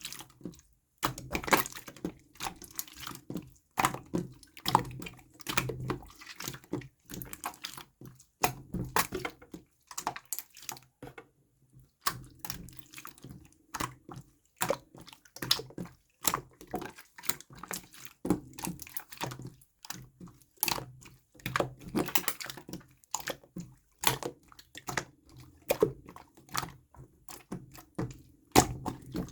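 Clear slime being squished and pressed by hand, giving a dense, irregular run of wet clicks and pops, with a short pause about twelve seconds in.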